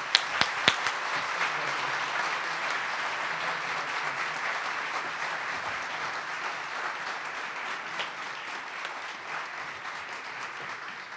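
Audience applauding, with a few sharp, close claps right at the start from someone clapping at the microphone. The applause holds steady, then slowly fades toward the end.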